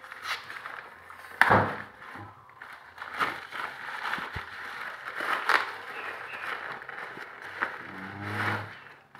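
Packaging and items being handled by hand: crinkling plastic and paper with scattered clicks, and a single loud knock about a second and a half in.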